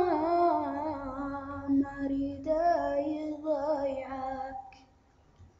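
A female voice singing a line of an Iraqi Arabic song, drawing out long ornamented notes that bend in pitch, then breaking off about five seconds in.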